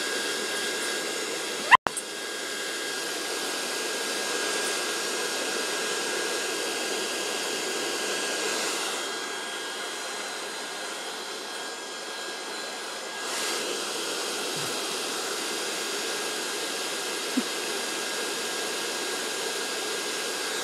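Hair dryer blowing steadily, a rushing airflow with a thin whistle. A sharp click with a momentary cut-out comes about two seconds in, and the air noise drops somewhat for a few seconds in the middle.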